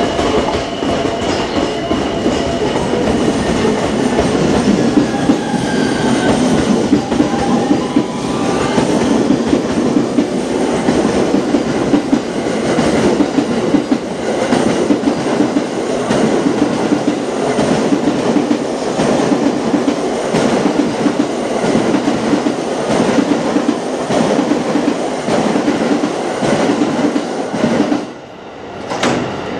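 Steel wheels of a JR electric commuter train clattering loudly and rhythmically over rail joints as the train runs along the platform. A whine that glides in pitch comes through about six to ten seconds in. The clatter drops away briefly near the end.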